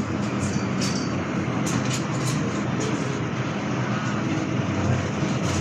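MTR M-Train electric multiple unit running, heard as a steady, continuous rumble with a low hum.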